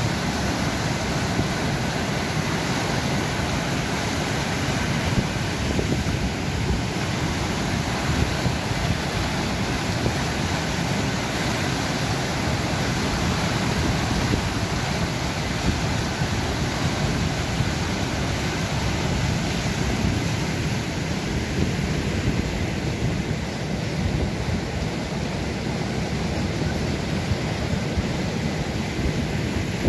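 Floodwater of a rain-swollen stream pouring over a concrete weir and churning in the turbulent water below it, a loud, steady rushing.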